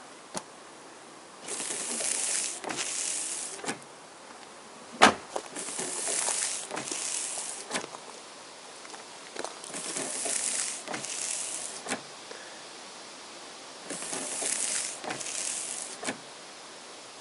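Toyota Corolla windshield wipers running after a repair of their worn linkage joint. The blades make a pair of swishes across the glass, one up and one back, four times, with a short pause between the pairs. Sharp clicks come now and then, the loudest about five seconds in; the linkage works smoothly again.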